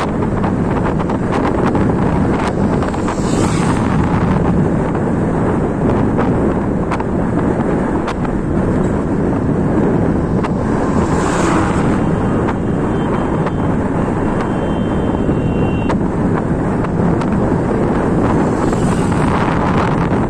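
Wind rushing over the microphone of a moving scooter at highway speed, a loud, steady rush. It swells briefly a few times as traffic passes, once as a truck goes by the other way about eleven seconds in.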